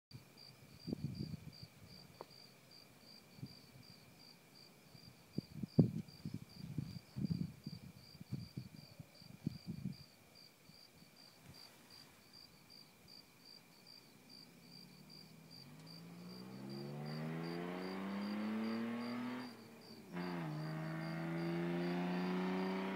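Crickets chirp steadily throughout, with a few scattered low thumps in the first half. Then a 1996 Ford Thunderbird's V6, running on open side pipes with no catalytic converter or muffler, is heard approaching under hard acceleration, loud and growing louder. Its pitch climbs, cuts out briefly at an upshift, then climbs again.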